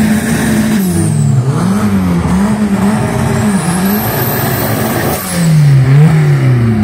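Volkswagen Gol drag car's engine revving up and down repeatedly at the start line, rising to its loudest about five to six seconds in as the front tyres spin in a smoky burnout.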